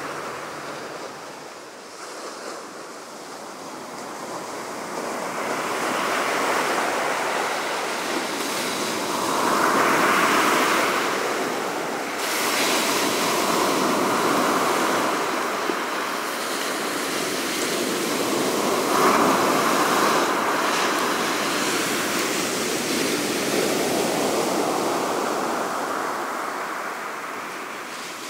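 Sea waves washing in, a rushing noise that swells and fades in slow surges every few seconds.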